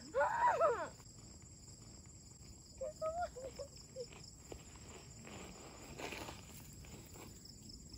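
Quiet outdoor ambience with a steady faint high insect drone and light rustling, broken by a short burst of a person's voice in the first second and a few brief pitched sounds about three seconds in.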